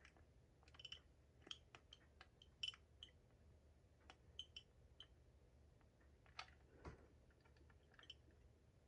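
Faint, irregular plastic clicks and taps from handling a Jameson Model C smoke alarm and pressing its test button. The alarm's horn does not sound: the test button is not engaging it.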